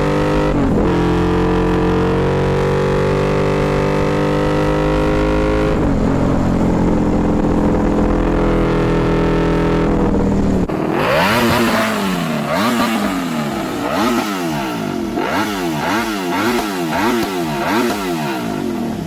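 Ducati Desmosedici RR's 989 cc V4 engine, first held at high revs with the pitch slowly climbing and dipping briefly twice. About eleven seconds in it changes to quick repeated revving, the pitch rising and falling about three times every two seconds.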